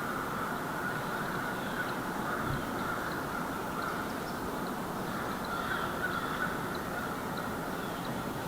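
American crows cawing in the distance over a steady background hiss of woodland ambience, with one soft low thump about two and a half seconds in.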